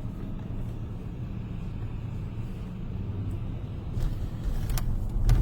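Road noise inside a moving car: a steady low rumble from the engine and tyres. Near the end it grows louder and rougher as the tyres roll over brick paving.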